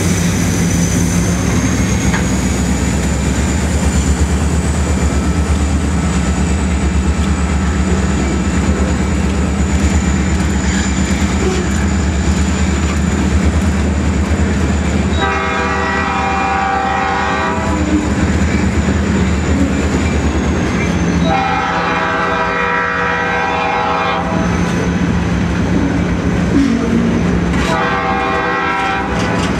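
Freight train passing close by. At first the diesel locomotives' engines run with a low steady drone, and then the covered hopper cars roll over the rails. Up ahead the lead locomotive's horn sounds a chord three times: two long blasts and a shorter one near the end.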